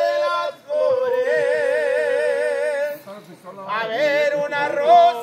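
Singing in long held notes with a wide vibrato, in a few phrases broken by short pauses, the longest note held about two seconds.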